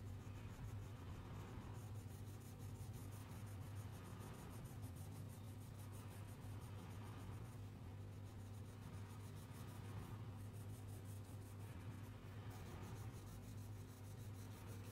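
Crayon rubbing on paper in quick back-and-forth colouring strokes, a faint soft scratching.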